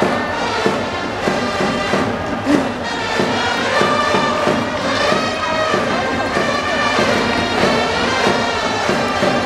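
Japanese baseball cheering-section trumpets playing a batter's cheer song (ouenka) melody over a steady drum beat, with crowd noise beneath.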